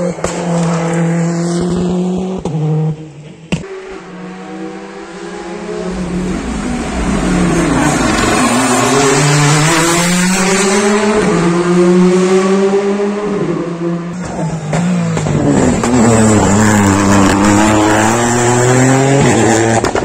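R5 rally cars driven flat out on asphalt stages: engines revving hard, the pitch rising and dropping again and again through gear changes and braking, in several passes joined by abrupt cuts, about three seconds in and near the three-quarter mark.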